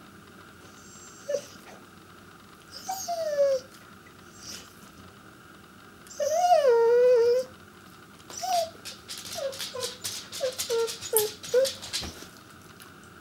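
Pembroke Welsh Corgi 'talking' to get attention: a falling whine, then a longer wavering whine about six seconds in, then a quick run of short yips and grumbles near the end.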